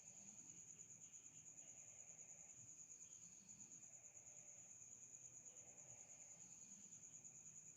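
A cricket trilling steadily, faint and high-pitched.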